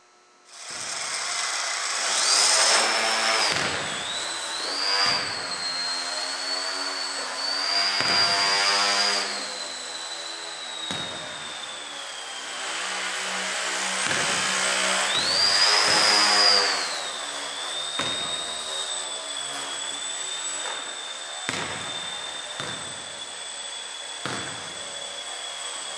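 Small electric motor and propeller of a Breeze Pro FP3 indoor foam 3D plane in flight in a gymnasium. It makes a high whine that climbs in pitch and gets louder with bursts of throttle about two seconds in and again about fifteen seconds in, then settles to a steadier, lower whine.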